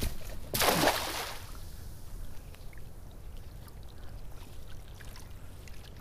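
A cast net lands on the water with a loud splash about half a second in, followed by quiet trickling and dripping water as it sinks.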